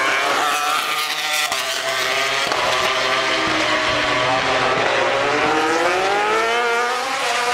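MotoGP racing motorcycle engines running at high revs, their pitch sliding down over the first few seconds and climbing again near the end.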